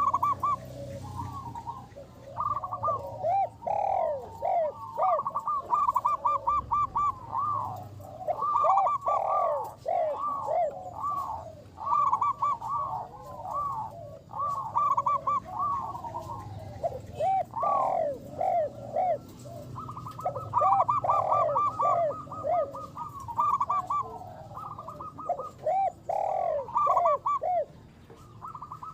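Zebra dove (perkutut) cooing: rapid runs of short coos, each note rising and falling in pitch, repeated in phrase after phrase with brief pauses between.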